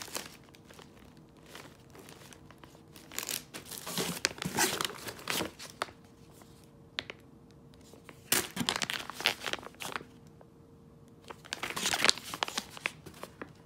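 Plastic and foil food packets and a plastic mailer bag crinkling as they are handled, in several bursts with quieter gaps between.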